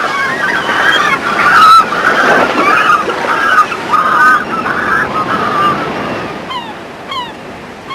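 A seabird colony on sea cliffs: countless seabirds crying at once over the wash of surf. The calling thins out near the end, leaving a few short falling calls.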